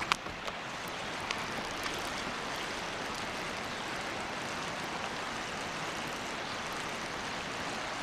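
Steady rushing of a flooded river's flowing water, with a few light clicks in the first two seconds.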